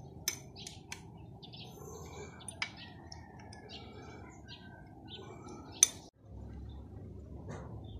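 Birds chirping over a low background, with a few sharp clinks of hand tools on a removed VW Beetle engine; the loudest clink comes about six seconds in. Right after it the sound cuts out for a moment and a low steady hum follows.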